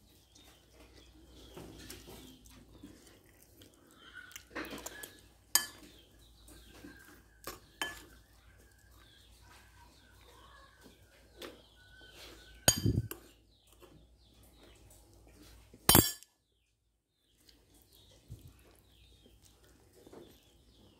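A metal spoon and chopsticks knocking and scraping against ceramic rice bowls and dishes while someone eats, in scattered clinks with a few sharper knocks in the second half.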